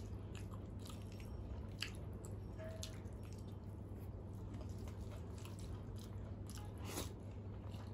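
Faint eating sounds: chewing, lip smacks and soft wet squishes as rice and curry are mixed and eaten by hand, with scattered small clicks over a steady low hum.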